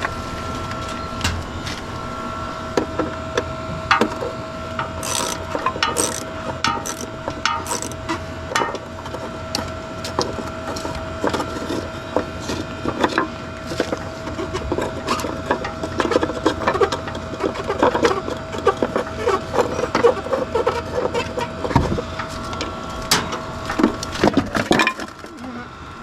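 Parts of an old central air conditioner being broken apart by hand for scrap: many sharp cracks, snaps and clatters of metal and plastic, coming thicker in the second half, over a steady hum that stops near the end.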